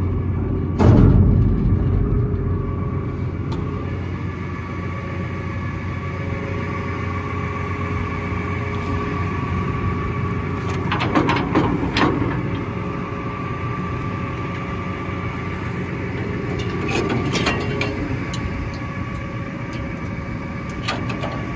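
Green John Deere tractor's diesel engine idling steadily. Over it come a thump about a second in and two short bursts of metal clatter later on, from the spreader's drawbar and PTO shaft being handled at the hitch.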